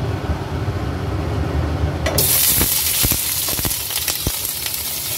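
Boiled pork chunks hitting hot oil in a nonstick frying pan: loud sizzling breaks out suddenly about two seconds in. A wooden spatula knocks against the pan several times as the pieces are stirred. Before the pork goes in, there is only a steady low hum.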